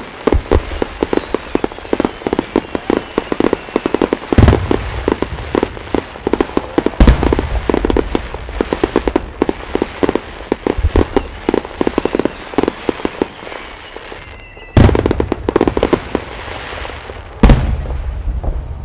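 Super Vesuvius fireworks salvo: shells fired in rapid succession, many sharp bangs a second. Four heavier booms stand out: one about four seconds in, one about seven seconds in, and two about three seconds apart near the end.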